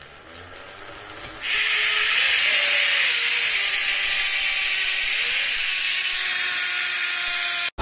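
BMX rear hub's freewheel buzzing as the rear wheel spins, its clicks running together into one continuous, loud, high buzz. A few faint ticks come first, the loud buzz sets in about a second and a half in, and it cuts off suddenly near the end.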